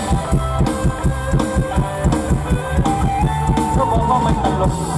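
Mor lam band playing a mostly instrumental passage: a steady, fast drum beat over a bass line, with a held melody line coming in about three seconds in.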